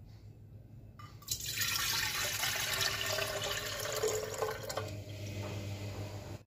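Water poured from a glass jug into a glass pot. The splashing starts about a second in and eases off near the end.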